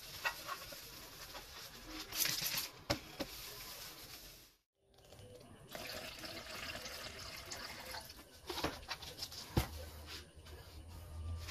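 A clear liquid is poured from a bottle into a plastic paint mixing cup, trickling steadily for a few seconds in the second half. Before that come a few light clicks and a short hiss.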